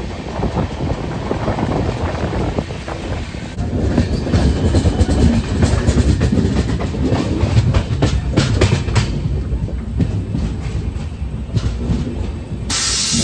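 Moving passenger train heard from its open doorway: a steady low rumble, with the wheels clicking quickly over rail joints and points through the middle. A sudden hissing rush comes in near the end.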